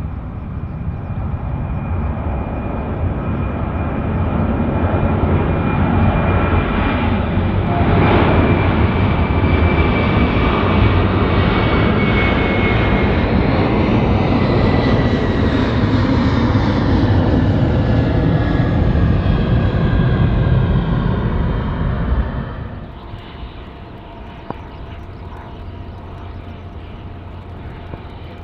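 Jet airliner's engines passing close. The noise builds over several seconds and holds loud with a high whine that slowly falls in pitch, then drops off sharply about three-quarters of the way through, leaving a quieter background hum.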